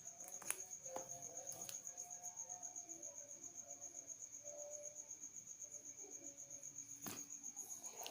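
A cricket trilling steadily in a high, rapidly pulsing tone, with a few faint clicks.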